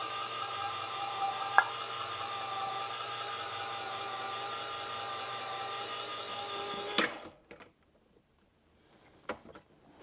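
Electric can opener running steadily as it cuts around a can of broth, then stopping with a sharp click about seven seconds in.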